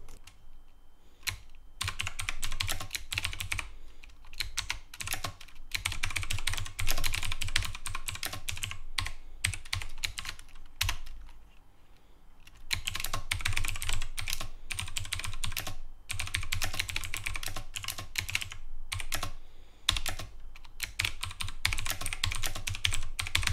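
Typing on a mechanical keyboard with clicky blue switches (Gaote Outemu blues), a dense run of sharp, typewriter-like clicks in several bursts with short pauses between them.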